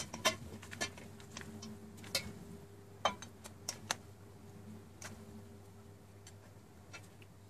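A spoon lightly knocking and clicking against a stainless steel bowl and a plate as noodle salad is scooped out and served: half a dozen scattered light taps over a faint low hum.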